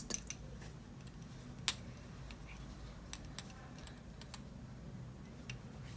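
Metal circular knitting needles clicking and tapping as stitches are worked on chunky yarn: scattered light clicks, with one sharper click about a second and a half in.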